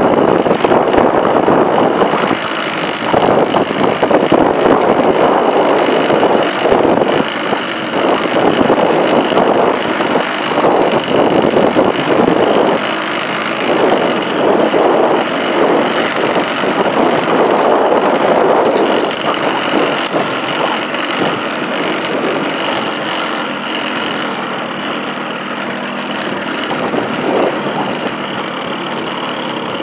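Engine of the vehicle carrying the camera running steadily as it drives along a rough dirt road, with road noise and jolts from the uneven surface.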